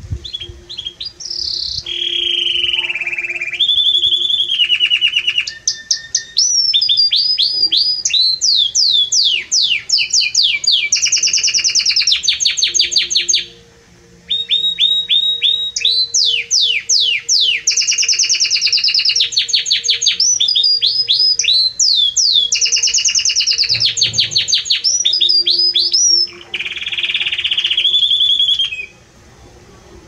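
Belgian canary singing a loud, long song of rapid repeated trills and rolling phrases, pausing briefly about halfway through and again near the end.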